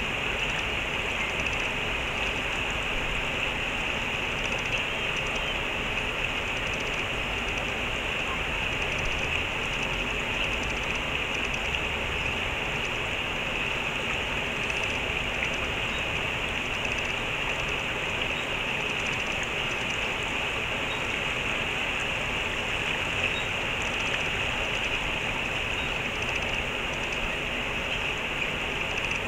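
Running water of a stream rushing steadily and evenly, with no pauses or single splashes.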